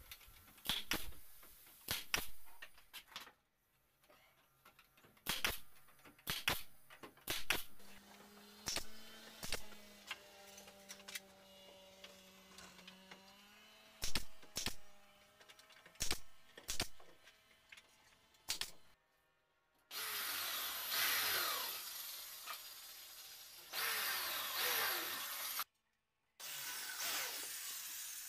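Pneumatic brad nailer firing nails into pallet wood: a string of sharp shots, one every half second to second or so, with short pauses between groups. In the last third a power drill runs in three long spells, its pitch falling under load as it drives fasteners.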